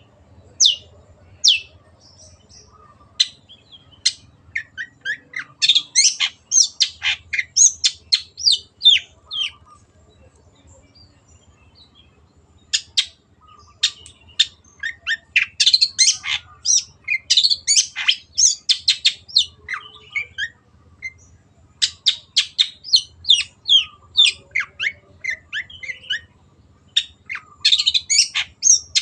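Long-tailed shrike singing: rapid runs of short, sharp, high chirping notes, broken by a couple of brief pauses.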